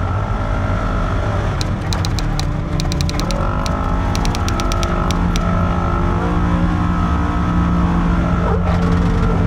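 Polaris RZR side-by-side's engine running under way, its pitch rising and falling with the throttle. A quick run of sharp clicks sounds from about one and a half to five and a half seconds in.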